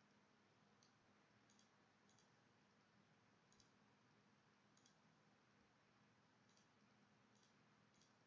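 Faint computer mouse clicks, about eight single clicks at uneven intervals, over near-silent room tone with a faint low steady hum.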